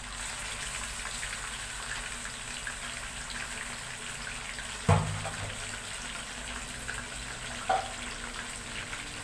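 Raw chicken pieces sizzling in hot oil in a karahi, a steady frying hiss. A sudden loud knock comes about five seconds in and a smaller one near the end.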